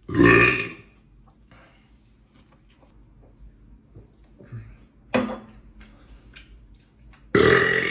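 A man burping loudly three times: once at the start, a short one about five seconds in, and again near the end.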